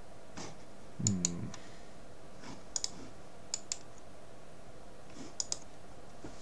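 Computer mouse button clicks, mostly in quick pairs, four times over a few seconds. About a second in, a short low hum of a voice comes with the first pair.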